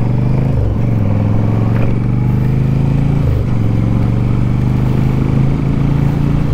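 Yamaha V-Star 1100 Classic's air-cooled V-twin engine running as the motorcycle cruises. Its pitch dips briefly and comes back about half a second in, and again about three seconds in.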